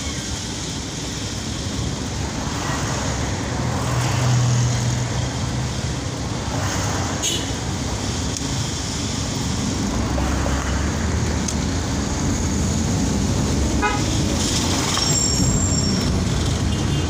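Steady engine and road noise inside the cabin of a moving Daihatsu Ayla hatchback, with its 1.0-litre three-cylinder engine. A deeper hum swells twice, and a short high-pitched tone sounds near the end.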